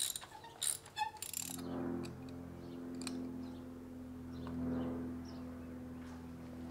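Ratchet on an extension and spark plug socket clicking a few times in the first second and a half while working loose an old spark plug that is difficult to get out. Then a steady hum of several held pitches takes over, swelling slightly midway.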